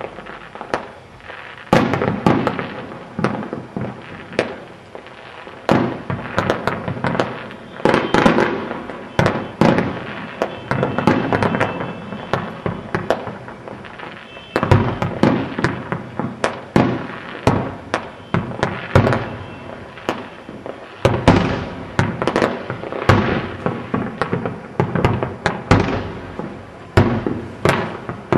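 Fireworks display: aerial shells bursting in quick succession, a continuous barrage of bangs and crackle with heavier volleys every few seconds.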